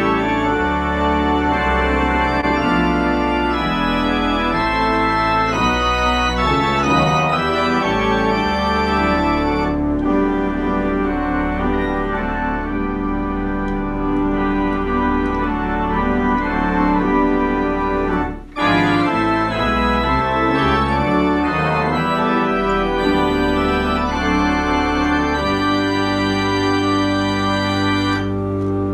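Compton cinema organ playing carols in full sustained chords over a low bass line. The music breaks off for a moment about two-thirds of the way through, then carries on.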